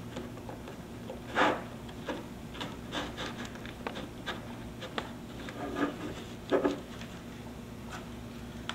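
Handling noise from a rectangular coax entry port panel with its cushion and coax runs being turned over in the hands: rubbing, light clicks and knocks, with louder knocks about a second and a half in and again around six and a half seconds.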